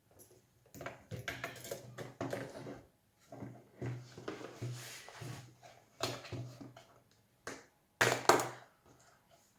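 Handling noise: a run of clicks, knocks and rustles as parts of the soldering station and its packaging are handled, with the sharpest knock about eight seconds in.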